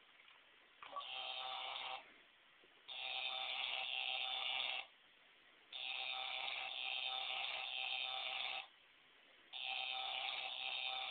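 Electronic buzzing from a Shocking Duel shock toy, coming in four bursts of one to three seconds with pauses of about a second between them.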